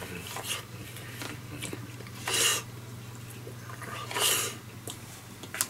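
Close-up eating sounds from a person eating a tonkatsu bento with chopsticks: chewing, with two short noisy bursts about two and a half and four seconds in, over a steady low hum.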